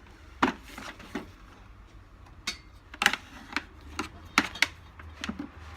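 Irregular sharp clicks and light knocks of screws being tightened and the plastic housing of a Henry vacuum cleaner being handled during reassembly.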